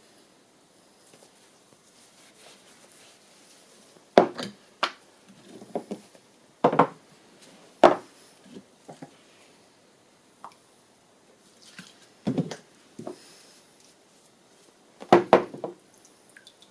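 A scattered series of sharp knocks and clunks, about six in all, the last a quick double, from objects being handled and set down on a workbench while a steel part is cleaned and rinsed.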